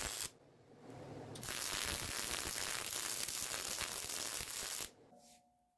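MIG welder arc crackling as a bead is run on a steel support: a short burst that stops just after the start, then a longer steady run of crackle from about a second and a half in that cuts off shortly before the end.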